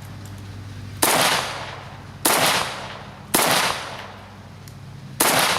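Waffen Werks/DDI AK-74 rifle firing 5.45×39 7N6 ammunition: four single shots at an uneven slow pace, each sharp crack followed by a short echoing tail.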